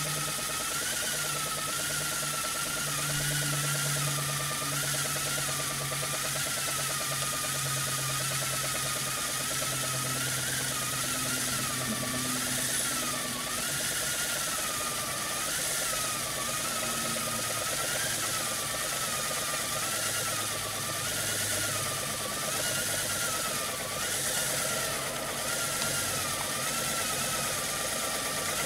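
Brass Hero steam engine spinning fast on its steam jets: a steady hiss with a high whistling tone that wavers up and down, over a low hum that shifts in pitch.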